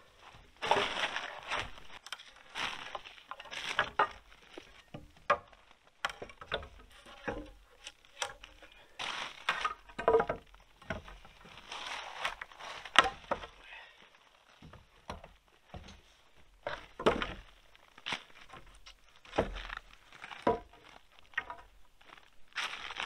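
Wooden roof poles, several of them birch, knocking and clattering against each other as they are shifted and laid side by side, in irregular knocks with rustling between them. The sharpest knock comes about halfway through.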